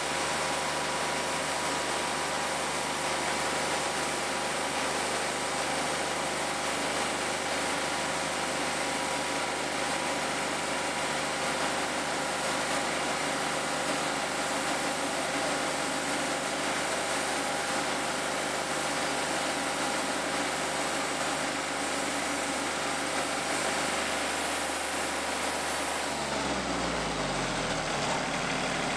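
Portable sawmill engine running steadily under load, with a steady whine over the noise. About three seconds before the end, its pitch falls sharply as it throttles down.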